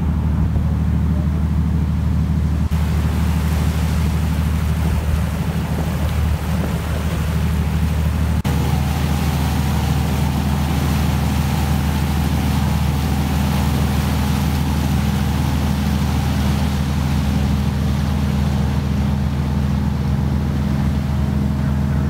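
Motorboat engine running steadily under way, with water rushing and splashing past the hull and some wind on the microphone.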